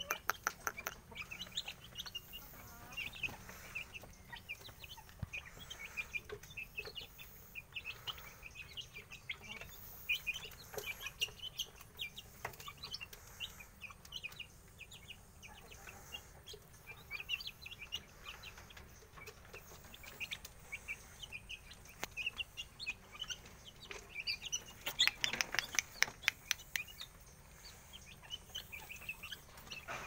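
Young Aseel chickens peeping and clucking in many short, high calls. About five seconds before the end there is a short burst of louder rapid clicks.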